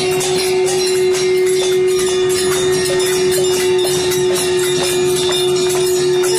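A group of soldiers clanging hand-held metal objects together in a fast, continuous jangling clatter, as a "sound salute" to coronavirus frontline workers. One long steady low tone is held underneath the whole time.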